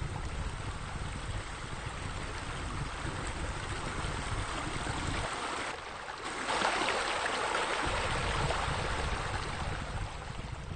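Steady rush of running water, swelling louder about six seconds in.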